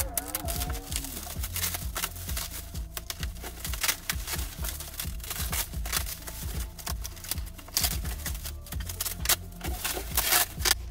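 Bubble wrap and plastic sheeting crinkling and rustling as it is pulled off a boxed hardtop, a dense, irregular crackle, over background music.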